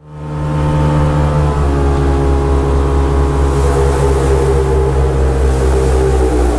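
An engine running steadily at a fairly even speed, fading in at the start, with its pitch shifting slightly a few times.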